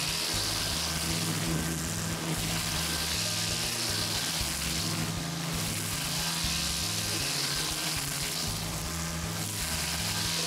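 Makita MUR012G cordless brush cutter spinning a nylon trimmer line through tall grass, making a steady high hiss. Background music runs under it.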